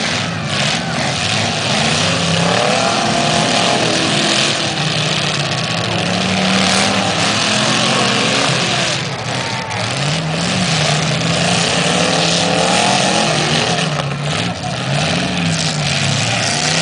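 Several demolition derby cars' engines revving hard over dense engine noise, the pitch climbing and falling again and again as the drivers accelerate and back off.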